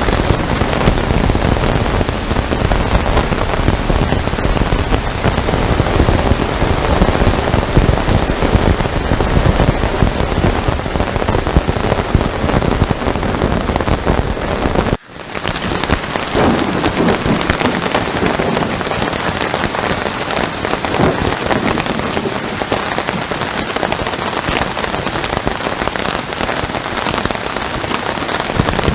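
Heavy rain falling steadily, a dense even hiss and patter. About halfway through it cuts out for a split second, as at an edit, then carries on.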